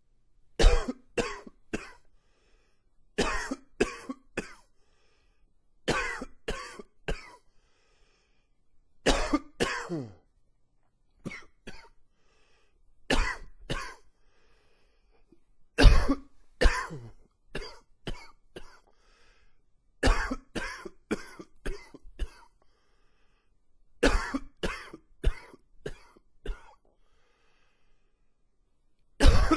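A man coughing in repeated fits: clusters of two to four sharp coughs every few seconds, with short pauses between.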